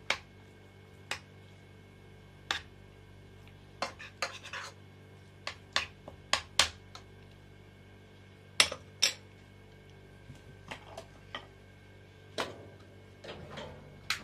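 A metal spoon clinking and scraping against a stainless-steel pan in irregular taps while filling is spooned into slit eggplants, with a louder pair of clinks about two-thirds of the way through.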